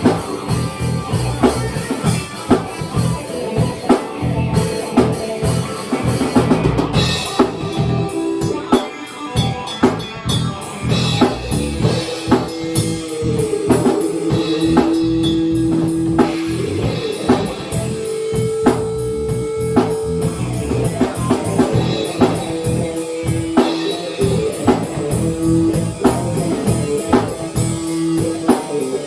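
A small band jamming live: a drum kit keeps a steady beat with bass drum and snare, with guitar playing along. Long held notes come in a little under halfway through.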